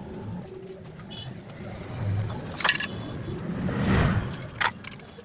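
Light metallic clinks and clicks of steel gears and timing-chain parts being handled inside an open Bajaj Pulsar crankcase, with two sharp clicks in the second half, over a steady low rumble.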